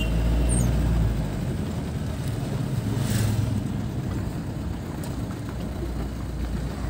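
Vehicle running: a low, steady rumble, loudest in the first second, with a brief hiss about three seconds in.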